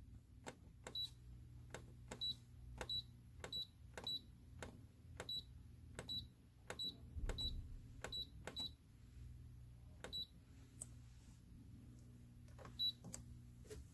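Electric pressure rice cooker's control-panel buttons pressed over and over as the cooking time is set: sharp clicks, most with a short high beep, about two a second, with a few more presses near the end.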